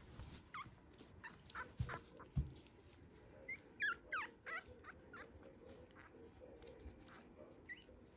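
Young Morkie puppies squeaking and whimpering in short, high, falling squeaks, with a quick run of them about four seconds in. Two soft thumps come about two seconds in.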